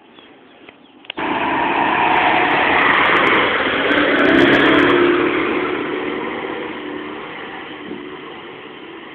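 Nissan 4x4 pickup driving fast past close by on a dirt track: engine and tyre noise cut in suddenly about a second in, peak as it passes about four and a half seconds in, then fade steadily as it drives away.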